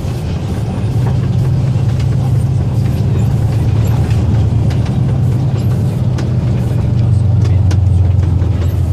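MAN truck's diesel engine running under load, heard from inside the cab: a steady low drone that gets louder about a second in and slowly drops in pitch in the second half, with scattered light clicks and rattles from the cab.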